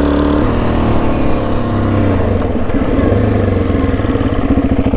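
Suzuki DR-Z400E's single-cylinder four-stroke engine running under way. Its note drops about half a second in, then wavers and climbs as the throttle is worked.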